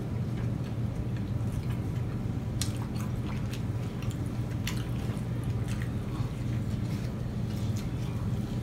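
Two people chewing and biting into large burgers, with scattered short wet mouth clicks and squishes. A steady low hum runs underneath.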